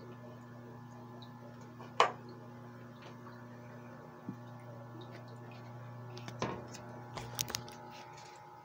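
Aquarium equipment giving a steady low hum, broken by a sharp click about two seconds in, a softer click a little after four seconds, and a short cluster of clicks and taps near the end.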